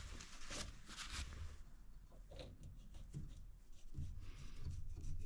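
Faint clicks and rubbing of an oil drain cap being handled and threaded back on a snowblower engine, the clicks closer together in the first second or so.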